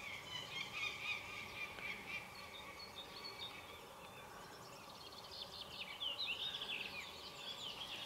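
Small birds chirping in a busy chorus of short, high calls, with a quick run of sliding notes about six seconds in.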